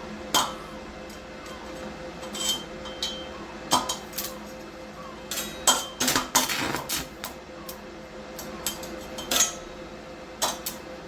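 Coated stick electrode tapped and scraped against a steel workpiece, giving irregular metallic clinks and knocks, the sign of the rod sticking instead of striking an arc. A steady hum runs underneath.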